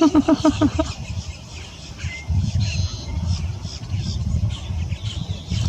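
Outdoor wetland ambience: a low, uneven rumble of wind on the microphone, with birds calling faintly and repeatedly in short high notes. A quick run of about eight pitched notes, like a short laugh, sounds right at the start.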